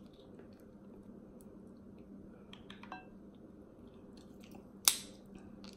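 Close-up eating sounds: soft chewing and small clicks as snow crab meat is picked from the shell by hand, with one sharp click a little before the end.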